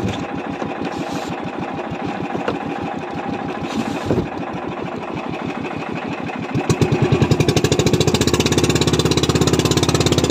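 The engine of a motorized outrigger fishing boat (bangka) running underway with a steady throb. About seven seconds in it grows louder and heavier, beating hard as the boat speeds up.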